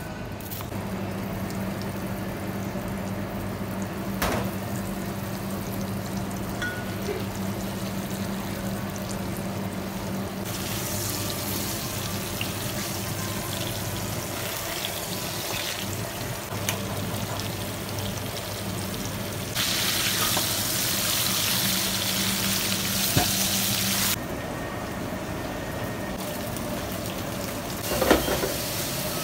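Flour-dusted beef shanks searing in hot fat in a pan, a steady sizzle that is loudest for a few seconds about two-thirds of the way through, over a steady low kitchen hum. A short clatter of metal tongs in a skillet comes near the end.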